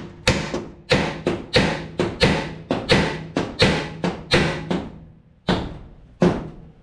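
A hammer striking metal in a quick series of blows, roughly three a second, each followed by a short metallic ring; the blows pause near the end, then two more land.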